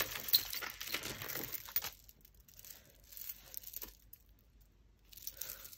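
Clear plastic bag crinkling as hands rummage in it, with beads clicking against each other. Busiest in the first two seconds, then only a few soft clicks of handling.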